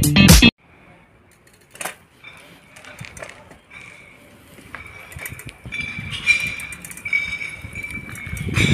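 Upbeat intro music cuts off abruptly about half a second in, giving way to quiet outdoor ambience: a steady high-pitched tone with scattered clicks and knocks, and a low rumble that builds near the end.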